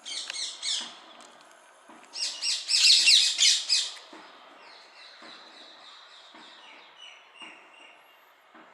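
Small birds chirping in quick, dense bursts: one burst at the start, a louder one about two to four seconds in, then fainter scattered chirps.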